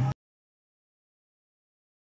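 The last syllable of a man's speaking voice, cut off a moment in, then dead digital silence.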